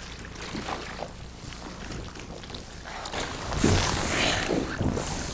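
Wind and water noise out on an open fishing boat, growing louder about three seconds in.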